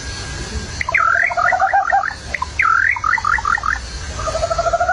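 Potoo calling: one held whistle, then two runs of quick whistled notes that sweep down and up, and a short trill near the end.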